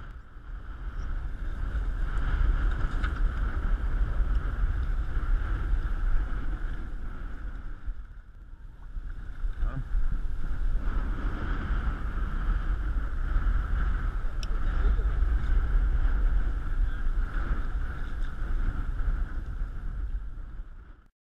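Boat under way, its Yamaha 115 hp four-stroke outboard running steadily, with heavy wind rumble on the microphone. The sound dips briefly about eight seconds in and cuts off abruptly near the end.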